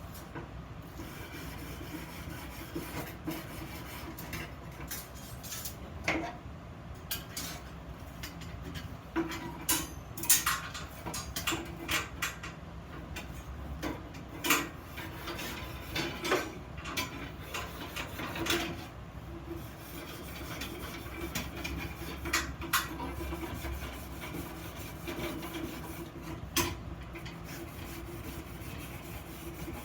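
Hand work on steel pieces: scraping and rubbing with scattered sharp metallic clinks and knocks, busiest in the middle, over a steady low hum.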